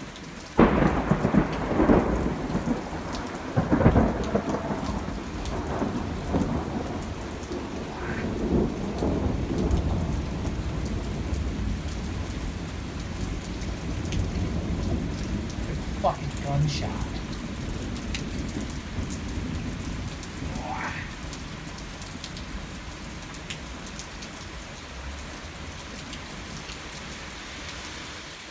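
Thunderclap breaking with a sudden loud crack about half a second in, a few more cracks over the next few seconds, then a long rumble that slowly dies away. Heavy rain falls steadily underneath.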